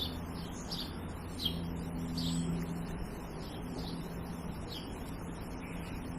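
Small birds chirping outdoors: short, high, falling chirps repeating every half-second to a second, fading out near the end, over a steady low hum.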